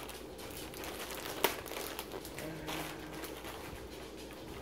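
Faint crinkling and rustling of packaging being handled, with one sharp click about a second and a half in.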